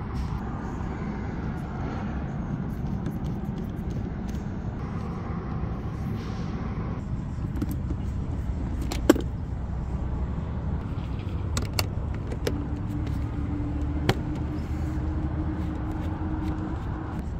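A steady low outdoor rumble. Over it come a few sharp clicks as a Torx screwdriver works the screws out of a car door panel's trim, and a faint steady hum joins in during the second half.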